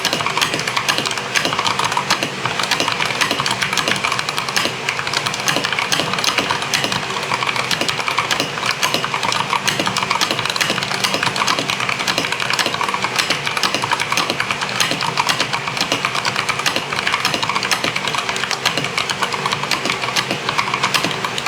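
Fast, continuous typing on a Rakk Ilis 96-key mechanical keyboard, a dense run of key clicks and clacks without pause.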